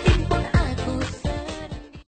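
Music with a beat and deep bass notes that drop in pitch, fading out toward the end.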